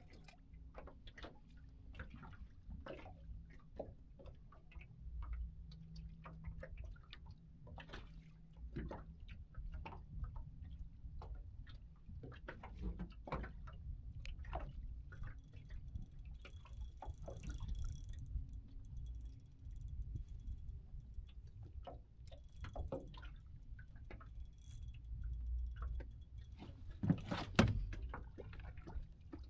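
Small waves lapping against a boat hull in irregular little splashes and clicks over a low rumble, with a louder knock near the end.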